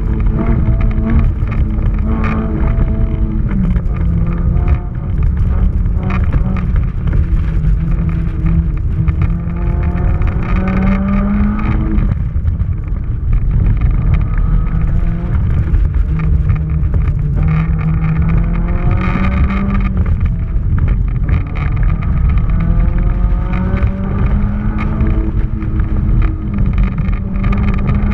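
Honda S2000's four-cylinder engine revving hard, heard from inside the open cockpit. Its pitch climbs again and again under acceleration, drops sharply about twelve seconds in as the throttle is lifted, then climbs back, all over a constant rush of wind.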